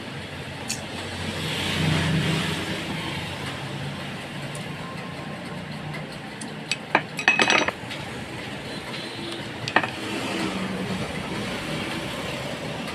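Small metal parts and hand tools clinking and clicking against each other during work on a hammer drill, with a quick cluster of sharp clicks about seven seconds in and a single click near the end.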